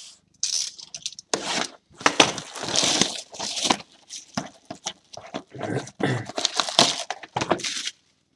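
Packaging of a sealed box of trading cards being torn open and crinkled: irregular crackling and tearing rustles, with a pause near the end.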